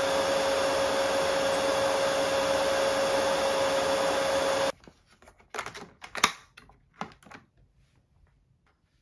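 Dreame H11-series wet-dry vacuum running its self-cleaning cycle in the base, the motor and roller brush making a steady noise with a high whine, which cuts off abruptly a little under five seconds in. Then a few sharp plastic clicks and knocks as the dirty water tank is taken off.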